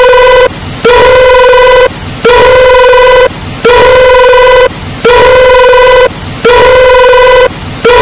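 A man humming through closed lips in imitation of a phone's tone: one loud, buzzy, steady note, held about a second at a time with short breaks and repeated at an even pace.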